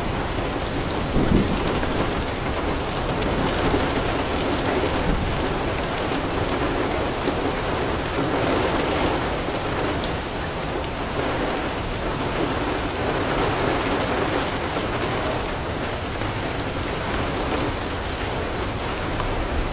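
Heavy rain falling steadily on a house roof and garden leaves, with a low thunder rumble underneath and a brief louder swell about a second in.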